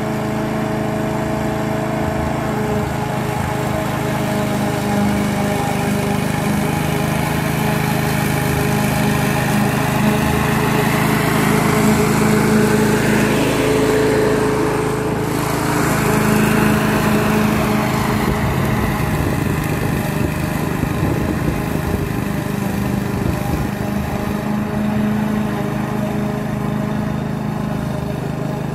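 Duricut 820 push lawn mower's 159 cc petrol engine running steadily while cutting grass. It grows louder as the mower passes close about halfway through, then fades as it moves away.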